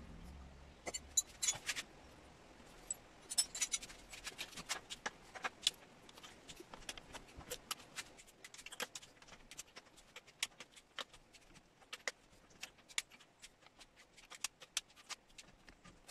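Irregular small metallic clicks and clinks from hands handling parts on the exposed camshafts and cylinder head of a DOHC Toyota 4E-FE engine, sharpest in the first few seconds.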